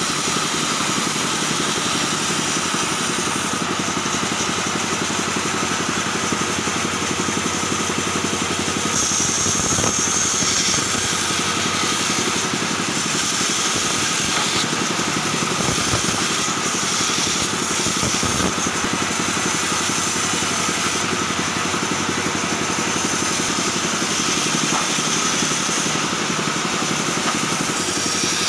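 Large band saw running steadily, its blade cutting through thick timber fed by hand, the cutting noise shifting a little as the wood is pushed through.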